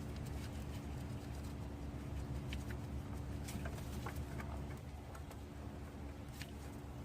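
A few faint, scattered small metallic clicks as a nut is hand-threaded onto the alternator's power-cable terminal stud, over a steady low hum.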